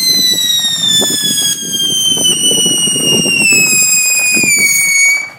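Whistling firework giving one long, loud, high whistle that slowly falls in pitch and cuts off suddenly near the end, over a rough crackling underneath.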